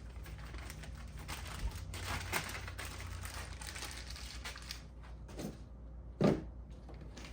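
Packaging crinkling and rustling as it is handled, with a single knock about six seconds in.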